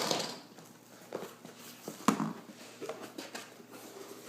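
Cardboard box being opened and its contents handled: a burst of rustling as the flaps open, then scattered knocks and clicks, with one sharp knock about two seconds in.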